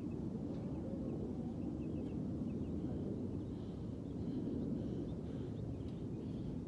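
Steady low outdoor rumble with faint bird chirps scattered through it.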